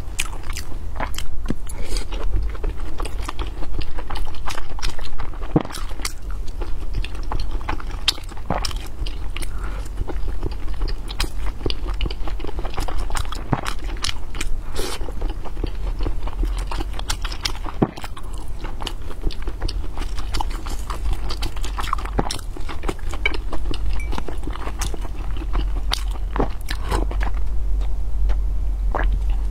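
Close-miked chewing and biting of steamed dumplings: wet mouth sounds with many small sharp clicks and smacks, over a steady low hum.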